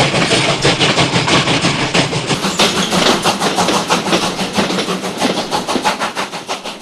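Steam locomotive chugging along in a fast, even rhythm of exhaust beats, heard from a doorway of the moving train. The sound gradually fades over the last few seconds.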